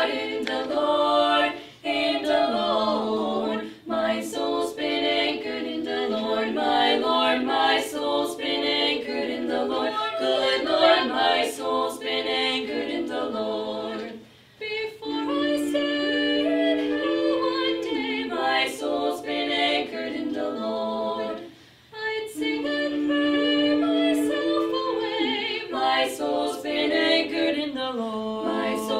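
Female vocal quartet singing a spiritual a cappella in close harmony, with two short breaks, about halfway through and again about three quarters of the way through.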